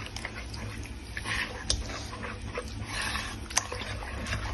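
Wire whisk stirring a thick, lumpy batter of fine semolina, water and yeast in a plastic bowl: uneven soft scraping with a few sharp clicks of the wires against the bowl.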